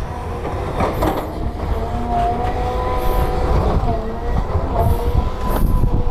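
Volvo crawler excavator's diesel engine running under load, with a hydraulic whine that rises and falls as the boom and arm move. A few knocks of rock are heard, about a second in and again near five seconds.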